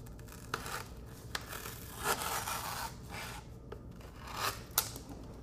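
A knife cutting and scraping through cured urethane foam on a bobcat mannequin form, in several strokes. The longest stroke comes about two seconds in and lasts about a second, and a sharp click follows near the end.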